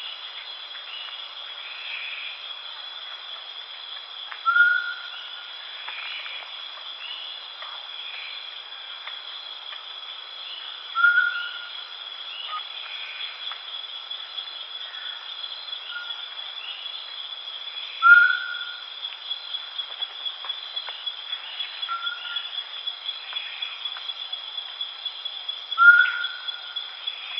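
An owl giving short, single hooting notes that rise slightly at the end, repeated every several seconds, over a steady high-pitched chorus of insects. Fainter calls from other birds come in between.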